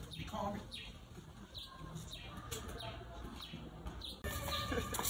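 Small birds chirping: short, quick downward-sweeping chirps repeated all through, with faint voices in the background.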